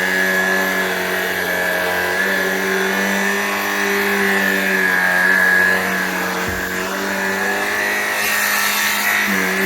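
Shark Rocket PowerFins cordless stick vacuum running steadily on carpet, its motor giving a constant high whine.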